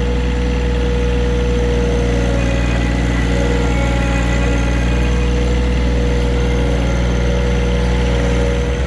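Tractor engine running steadily, its note shifting just before the end.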